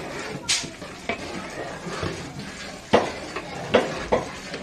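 Metal ladle stirring a large pot of cooking dal, clanking against the pot about six times at an uneven pace.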